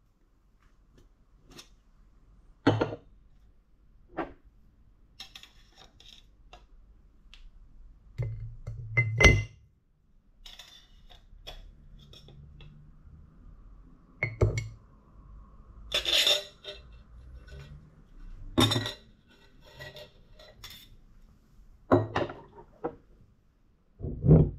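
Ice cubes dropped one at a time into an empty highball glass, each landing with a sharp clink against the glass, about seven loud ones spaced irregularly with quieter ticks between them.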